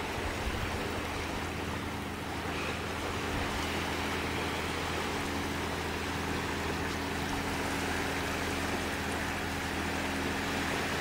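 Small waves washing on the shore as a steady rushing noise, with a steady low engine drone underneath.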